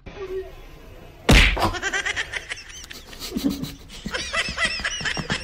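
A loud slap or thump about a second in, followed by a rapid run of short high-pitched sounds.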